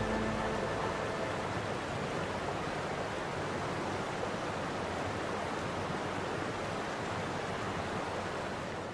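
Steady, even rushing hiss of outdoor ambience with no distinct events. The last low note of the closing music dies away in the first half-second.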